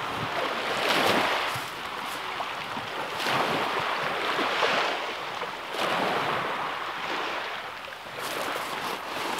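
Small waves breaking and washing back over a shingle shore, swelling and fading every two to three seconds.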